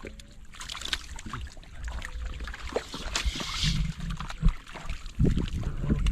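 Splashing and sloshing in shallow floodwater, with irregular sharp splashes and a longer hissing splash about three seconds in.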